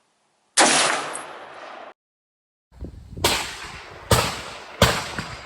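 Gunshots. One shot about half a second in, with a long echoing tail that cuts off abruptly. After a short silence, three shots follow about three-quarters of a second apart.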